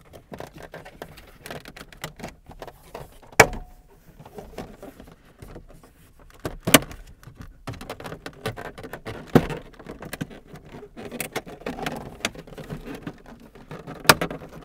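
Plastic dash trim clips snapping loose as the top dash cover of a Chevrolet Cavalier is pulled up by hand: four sharp snaps a few seconds apart, with small clicks and rattling of the panel between.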